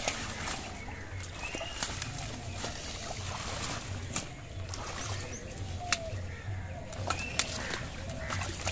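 Shallow muddy water sloshing and splashing as hands feel through it among water-hyacinth stems, with a few sharp knocks and short bird chirps.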